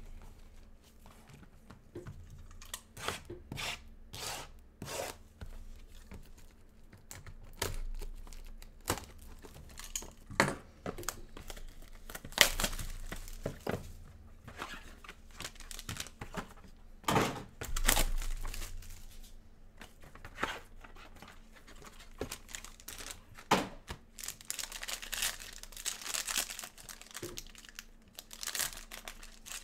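Gloved hands tearing open the packaging of sealed baseball card boxes, with scattered taps and knocks of cardboard. Near the end comes the longer crinkle of a foil card pack being torn open.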